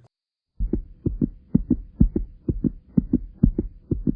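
Heartbeat-like rhythm of low thumps in pairs, about two pairs a second, starting about half a second in, over a faint steady hum.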